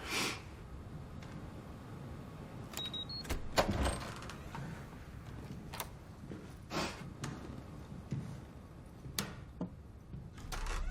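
Scattered sharp clicks and knocks, about a dozen spread unevenly, over a faint low rumble; a low hum comes in near the end.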